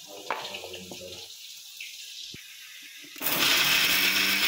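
Small clinks and handling sounds, then about three seconds in an electric kitchen mixer grinder is switched on and runs loud and steady.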